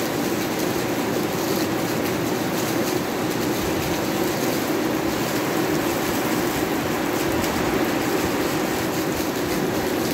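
Heavy thunderstorm downpour: a steady, even roar of pouring rain.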